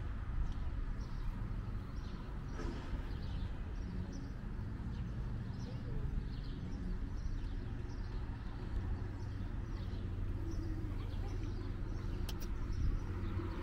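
Outdoor ambience: a steady low rumble, with small birds chirping again and again throughout and a single faint click near the end.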